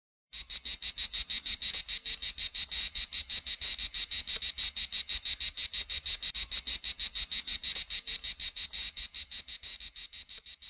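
An insect stridulating: a steady train of short, evenly spaced high chirps, about six a second, that fades out near the end.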